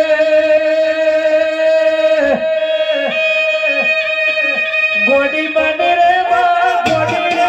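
Devotional folk music: a long held melodic note, then a wavering, ornamented melody, with drum strikes coming in near the end.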